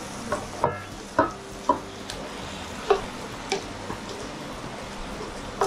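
Browned chicken pieces scraped with a wooden spatula out of a steel frying pan into an enamelled cast-iron pot, over a steady sizzle of frying mushrooms and onions. There are about seven short knocks with a brief metallic ring as the pan and spatula strike the pot.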